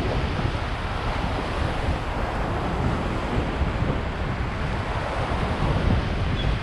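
Wind buffeting the microphone in a steady rumble over the wash of waves.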